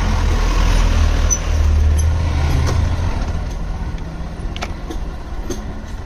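A Tata pickup truck's engine rumbling as it passes close by, easing off after about three seconds, over a motorcycle engine running at low speed on a dirt lane. A few light clicks follow.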